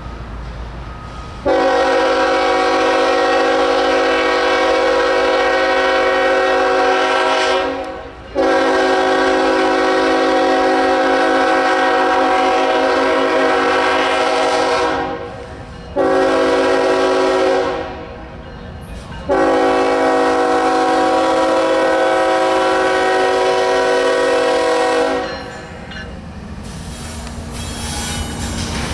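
Freight locomotive's multi-chime air horn sounding the grade-crossing signal: long, long, short, long. Near the end the lead CSX GE ES44AH locomotive draws up and passes, its running growing louder.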